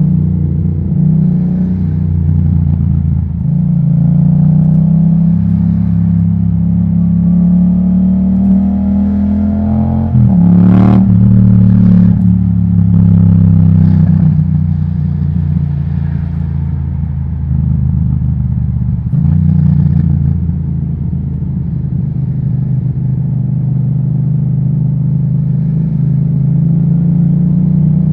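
A 2018 Yamaha MT-07's parallel-twin engine running through an Akrapovic titanium exhaust while riding in traffic. It rises in pitch as it pulls, with a gear change and a sharp crack about ten seconds in, and another change near nineteen seconds.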